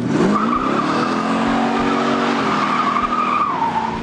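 1970 Dodge Super Bee's 440 Six Pack V8 revving up as the car pulls away hard, with its tires squealing. The engine note climbs in the first half second and then holds, and the squeal lasts about three seconds, dropping in pitch near the end.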